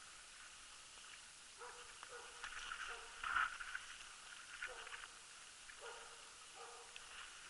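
Faint, repeated barking of a Jämthund (Swedish elk hound) baying at a moose: the steady bay barking that tells the hunter the dog is holding a moose at bay. The barks come irregularly, about one every half second to second, and the loudest falls about three seconds in.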